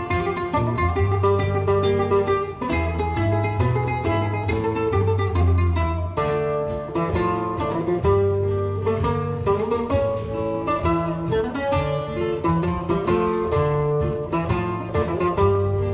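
Instrumental background music led by quickly picked guitar over held bass notes.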